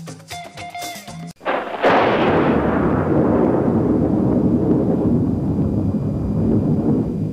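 Light percussive intro music stops abruptly about a second in. It is replaced by a production-logo sound effect: a sudden, loud, deep boom that lingers as a low rumble, slowly fading.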